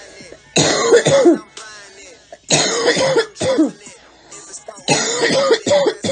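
A young woman coughing in three bouts about two seconds apart, each bout a quick run of several coughs, over quieter hip hop music.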